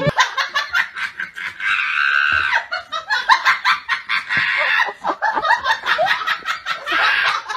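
Laughter: quick, high-pitched giggling in rapid repeated bursts.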